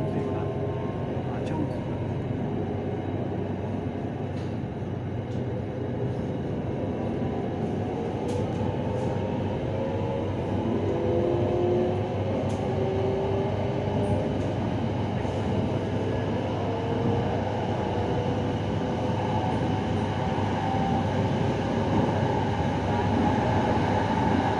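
Inside an SRT Red Line electric commuter train on the move: a steady rumble of wheels on rail, with the traction motors' whine climbing in pitch from about halfway through as the train picks up speed.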